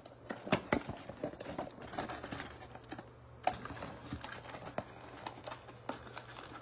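A cardboard trading-card box being handled and opened by hand: scattered light taps, clicks and rustles of cardboard and foil-wrapped packs.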